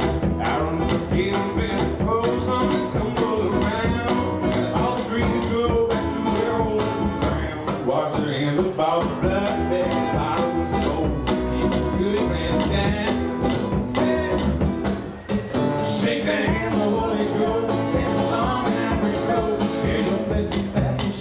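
Live folk-country band playing: a strummed acoustic guitar with an upright bass and a foot-played bass drum keeping a steady beat. The music drops back briefly about fifteen seconds in.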